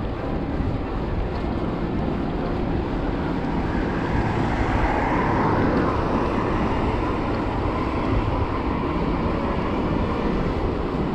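Wind rushing over a handlebar-mounted action camera on a moving bicycle. A car passes on the road alongside, swelling to its loudest about five seconds in and then fading.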